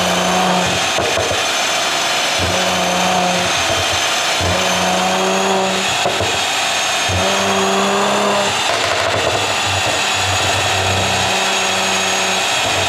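Mercedes-AMG C43's twin-turbo V6 exhaust revved five times, each rev held for about a second before dropping back, with crackling pops in between from its pop-and-bang exhaust tune.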